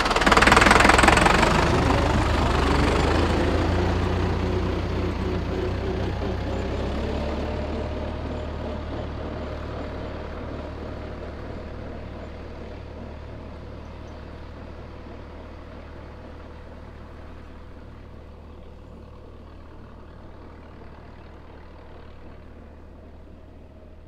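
Tractor engine revving up loudly as it pulls away, then running steadily and fading gradually as the tractor drives off into the distance.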